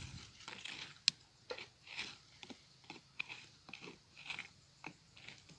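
Knife blade digging and scraping into dry, crumbly soil: short gritty crunches about twice a second, with one sharp click about a second in.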